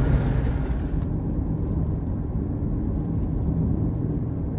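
A car driving, heard as a steady low rumble of engine and road noise.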